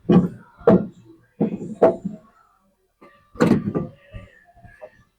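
Metal clacks and clunks of a 1969 Chevelle door latch assembly being handled and its levers worked: about five sharp knocks in the first four seconds, then a few lighter ticks.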